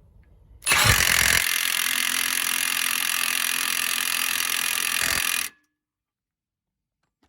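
Milwaukee M18 Fuel 2763 half-inch cordless impact wrench hammering a bolt tight. It runs for about five seconds, starting just under a second in and stopping abruptly.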